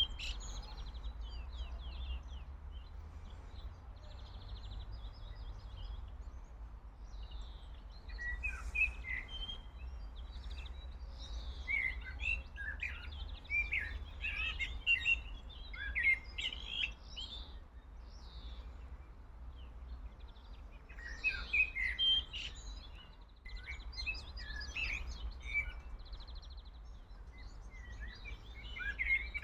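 Small songbirds chirping and singing in clusters of quick high calls, with short pauses between bouts, over a steady low rumble.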